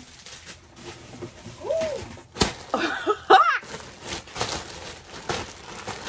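Soft plastic bag crinkling and rustling in irregular bursts as a plush toy in its clear plastic bag is handled and hugged. A few brief high squeaky sounds come around the middle, the loudest near the midpoint.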